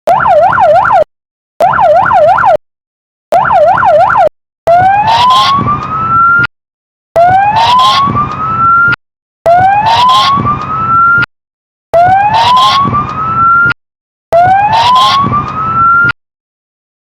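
Police patrol car electronic siren sounded in short blasts to clear the way at intersections: three quick bursts of a fast up-and-down yelp, then five rising wail sweeps of about two seconds each, each cut off before it falls.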